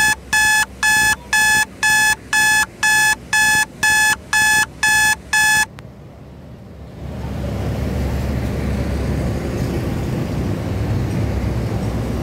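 Rapid electronic beeping, two to three beeps a second on a steady pitch, that cuts off suddenly about six seconds in. A second later a steady low rumble of road noise rises.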